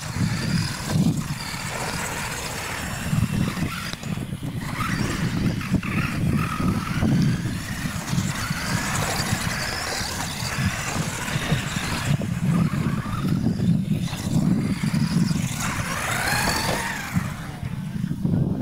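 Radio-controlled monster trucks racing, their motors and gears whining and rising and falling in pitch as the throttle changes, over a steady low rumble.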